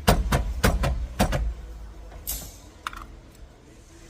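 Repeated thumps of blows struck on a Toyota RAV4 steering wheel, about six quick knocks in the first second and a half, to break the wheel loose from the steering shaft after its nut is off. A short scrape and a click follow.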